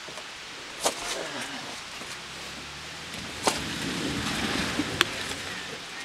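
Jeep Wrangler JK Unlimited's engine running under load as it crawls up a muddy, rutted trail, growing louder from about halfway through. Sharp clicks come about a second in, near the middle and again a second and a half later, over a steady background hiss.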